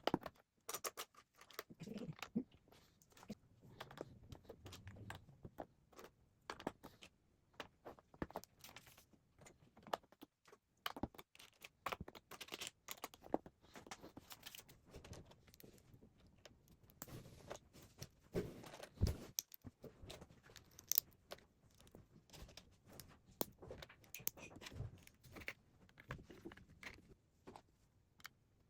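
Plastic Lego bricks being handled and pressed together: many small, irregular clicks and rattles.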